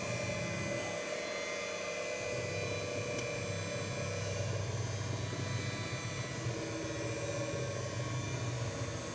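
Electric hand mixer running steadily on speed setting 1, its beaters turning through brownie batter in an enamel pot, with a steady motor hum.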